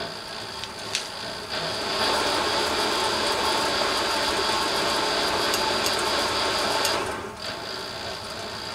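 Small metal lathe driven by a 550 W brushless servo sewing-machine motor, running with a steady high whine and a mechanical gear clatter. About a second and a half in it speeds up from 400 to 1000 motor RPM and runs louder, and near the end it drops back to 400 RPM and runs quieter. A single click comes about a second in.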